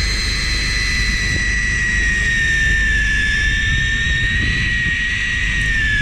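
Electric fishing reel's motor winding in line under load with a steady high whine, hauling a hooked fish up from deep water. The pitch starts to fall near the end as the winding slows. A low rumble of boat and sea noise runs underneath.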